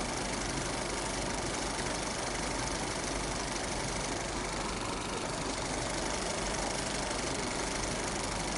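Film projector running: a steady, fast mechanical clatter that holds level throughout.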